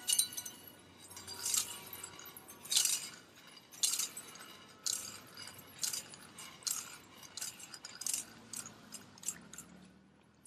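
Glass shards clinking and tinkling onto wet pavement: a run of sharp, ringing clinks, about one a second at first, then closer together and fainter until they die away near the end.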